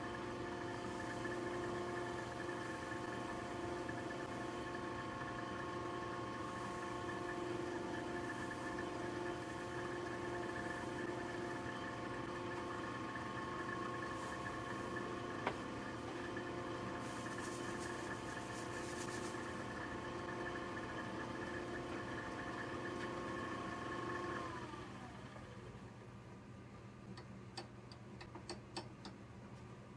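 Wood lathe motor running steadily with a hum of several tones, then switched off about 24 seconds in and winding down with a falling whine. A few light clicks near the end.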